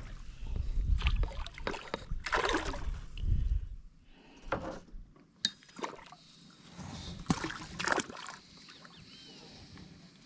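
Water sloshing and splashing against a plastic kayak hull, with several sharp knocks on the hull. A low rumble during the first four seconds then drops away.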